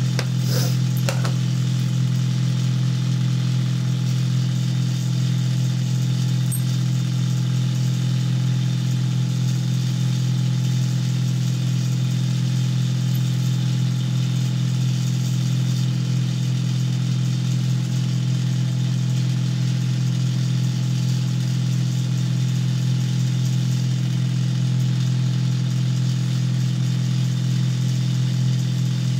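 A steady low mechanical hum, as of a motor running, holding one pitch without change. A couple of light clicks sound about a second in.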